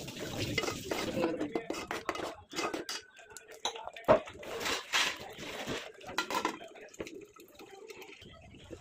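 A steel spoon scraping and clinking in an aluminium pan of thick curry masala as water is poured in from a steel tumbler and stirred, with one loud clank about four seconds in. A metal lid is then set on the pan.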